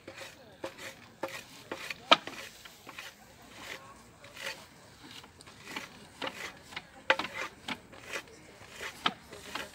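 Wooden flax brake: the hinged beam is brought down again and again on a handful of dried flax stalks, giving sharp wooden knocks and the crunch of stalks breaking, about two a second and unevenly spaced. The loudest knock comes about two seconds in. This is the breaking stage of flax processing, where the woody core is cracked away from the fibre.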